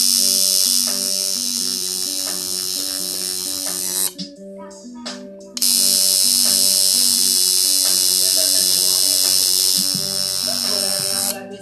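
Tattoo machine buzzing steadily as it works on skin, cutting out for about a second and a half around four seconds in and again near the end. Background music with a steady beat plays underneath.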